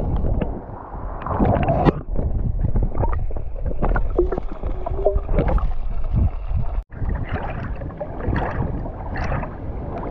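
Seawater sloshing, splashing and gurgling against a camera held at and under the surface, with muffled underwater bubbling. The sound cuts out for an instant about seven seconds in.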